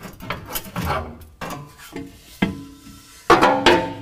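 A cut section of factory exhaust pipe being wiggled free of its hanger and dropped out from under the truck: rubbing and scraping of metal, a sharp knock about two and a half seconds in, then loud ringing metal clanks near the end.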